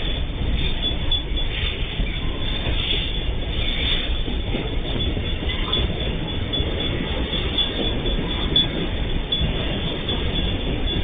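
MRS Logística freight train's container flatcars rolling past: a steady rumble of steel wheels on the rails, with brief high wheel squeals now and then.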